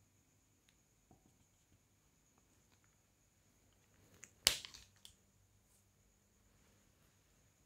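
Quiet room tone with a few faint ticks, then one sharp click about halfway through, followed by a short spill of smaller clicks.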